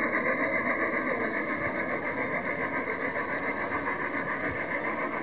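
Garden-scale model steam locomotive running with its coaches: a steady high hum that pulses in an even beat of about four to five a second.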